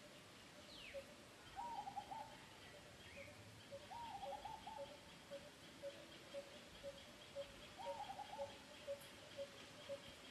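Faint bird calls: a steady series of short, low notes repeated about twice a second, with three short warbling phrases in between.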